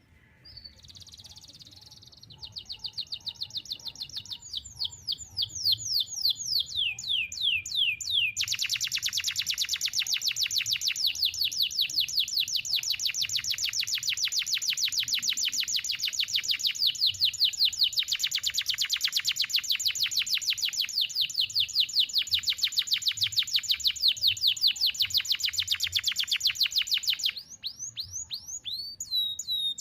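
Domestic canary singing: rapid repeated notes in changing trill phrases that merge into one long, fast trill held for almost twenty seconds in a single breath. The trill breaks off briefly near the end before the song starts again.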